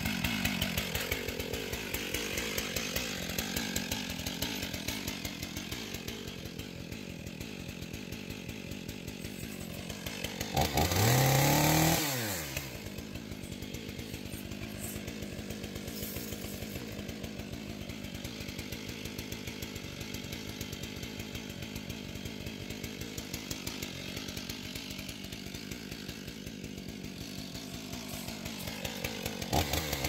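Two-stroke chainsaw idling with an even pulse. It is throttled up hard for a little over a second about ten seconds in, then drops back to idle, and revs up again at the very end.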